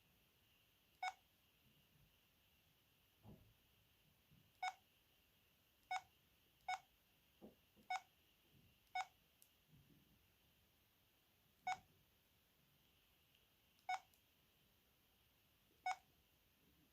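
VK530 mobile phone keypad tones: nine short beeps of a single pitch at irregular intervals, one per key press, with a couple of fainter clicks between them.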